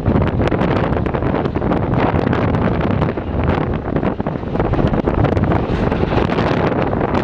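JCB 3DX backhoe loader's diesel engine running steadily under work, with wind buffeting the microphone and scattered short knocks.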